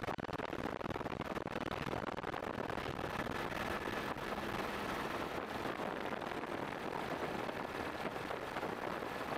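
Steady rushing noise of the filming helicopter heard from aboard, with a faint, thin, steady whine over it.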